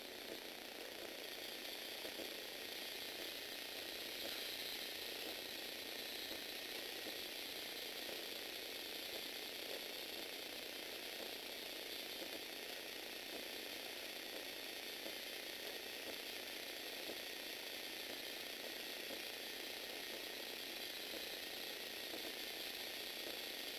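Lego Technic walking robot's small electric motor and plastic gear train running steadily, a dense even rattle of gear teeth meshing as the linkage legs step.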